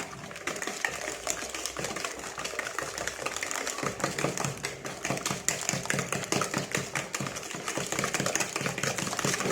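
Hand whisk beating cake batter of eggs and oil in a bowl, its wires clicking rapidly and evenly against the bowl, more regular from about halfway through.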